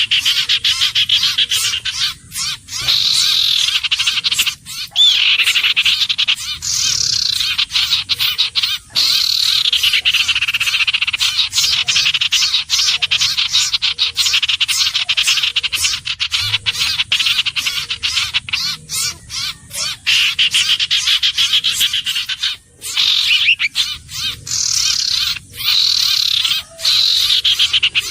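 Common iora calling: fast runs of sharp repeated notes, with phrases that fall in pitch recurring every few seconds.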